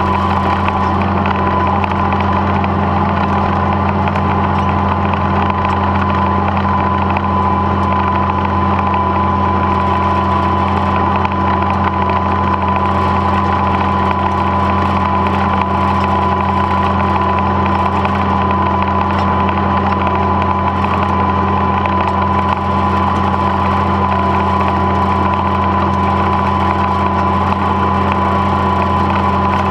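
Old tractor engine running steadily as the tractor drives along, heard close up from its hood: a steady low drone with a thin high whine held at one pitch.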